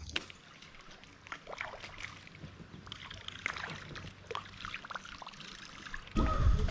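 Small water splashes, drips and trickles around a kayak as its paddle dips and water runs off the blade and hull. A little after six seconds a loud low rumble of wind on the microphone sets in suddenly.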